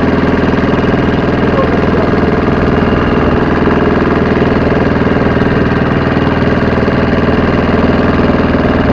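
Boat engine running steadily under way, a constant even drone.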